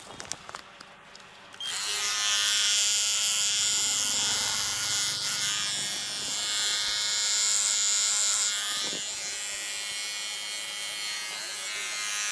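A few small handling clicks, then a cordless electric hair clipper switches on about a second and a half in and runs with a steady buzz as it cuts the client's hair.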